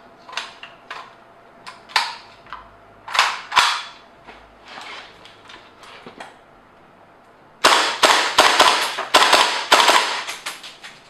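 HTS-14 airsoft rifle, a replica of the OTS-14: several sharp mechanical clicks and clacks of the gun being handled, then a rapid string of about a dozen shots starting about two-thirds of the way in and thinning out near the end.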